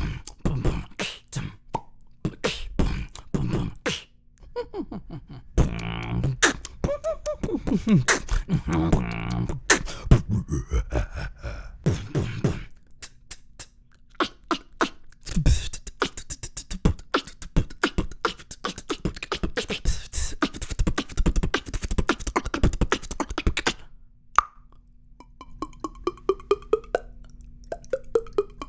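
Beatboxing: one performer's mouth and voice making a string of imitations. It opens with sharp clicks and pops for the tennis-ball sound, moves into a fast, dense run of drum beats, and near the end makes a few pitched water-drop plops.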